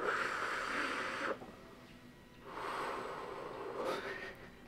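A man drawing on a cigar with a breathy, airy draw, then after a short pause blowing the smoke out in a long exhale.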